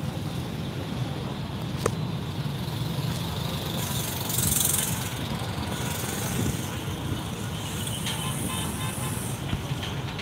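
Street traffic with a steady low engine rumble, with a sharp click about two seconds in and a brief hiss about four and a half seconds in.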